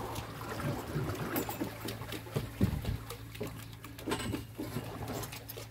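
Sea water trickling and splashing around a fishing boat, over a low steady hum, with scattered small clicks and knocks.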